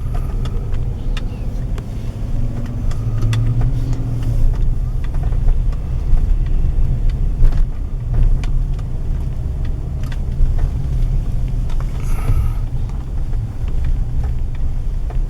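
Car in motion heard from inside the cabin: a steady low road and engine rumble, with scattered small clicks and rattles and a brief brighter noise about twelve seconds in.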